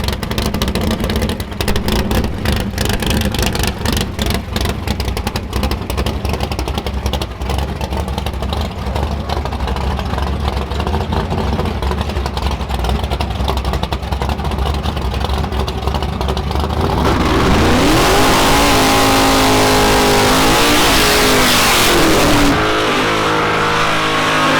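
Drag-race cars' engines idling with a fast, choppy beat, then about seventeen seconds in going to full throttle for a launch. The pitch climbs, drops back at a gear change, and climbs again, twice.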